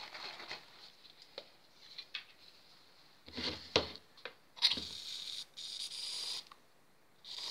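Aerosol shaving foam can handled with a few knocks, then spraying foam out with a steady hiss for under two seconds, broken once briefly, and a short final spurt near the end.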